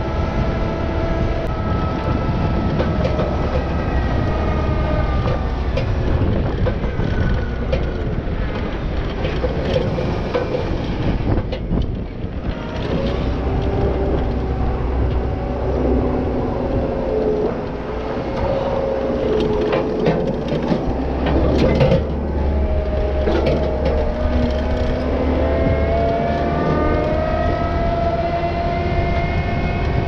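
Loader engine running under load while pushing snow with a front plow blade, its pitch rising and falling as the revs change. A few clanks and rattles come through around the middle and again later on.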